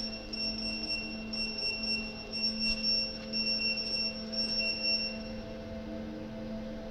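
Electronic beeper sounding a regular series of high, long beeps, about one a second, that stops about five seconds in, over a steady low electrical hum from the X-ray security scanner.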